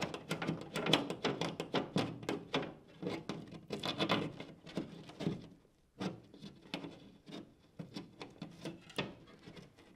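Thermostat wire and a coat-hanger fish being worked through a small hole in drywall: irregular scraping, rubbing and clicking of wire against the wallboard, with a short break about six seconds in before the handling resumes.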